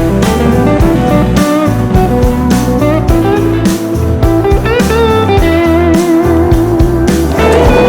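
Background music: electric guitar lines with bent notes over a steady beat.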